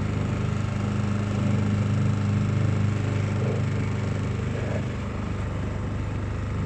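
Small motor boat's engine running steadily at cruising speed, a constant low hum.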